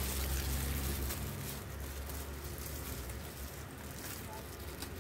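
Clear plastic bag rustling and crinkling as hands handle a packaged item, over a steady low hum.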